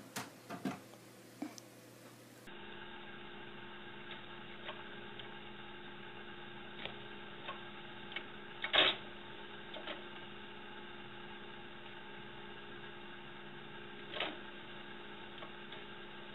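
Steady electrical hum of several even tones with scattered faint clicks, the loudest about nine seconds in. In the first two seconds, over a fainter hiss, come a few light knocks.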